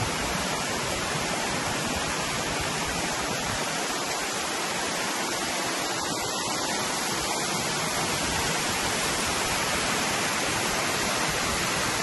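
A small waterfall pouring into a rocky pool: a steady, even rush of falling water.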